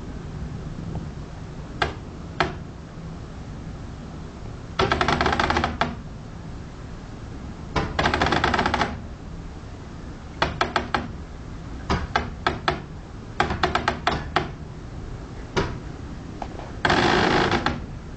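Metallic rattling and clanking: a few single knocks, quick runs of clicks, and four bursts of about a second of dense, ringing rattle.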